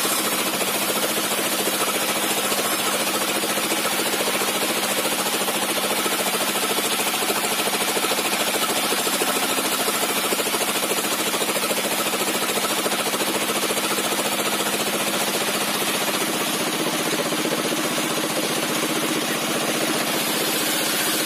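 Sawmill table circular saw with a 60 cm zigzag (alternately set) tooth blade running steadily while a wooden slab is fed through it lengthwise, ripping a 2-inch plank. The saw's drive drones evenly throughout, with no pauses.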